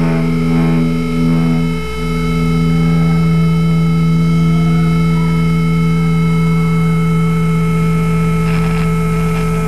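Loud sustained drone from an industrial rock band's amplified instruments: a held chord of several steady tones over a hissy noise, not changing pitch, with a brief dip about two seconds in.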